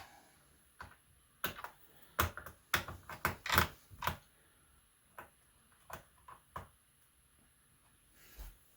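Sharp clicks and taps of small hand tools working on a laptop's plastic and metal parts during disassembly, in a quick cluster of about a dozen clicks, then a few lighter ticks after a pause.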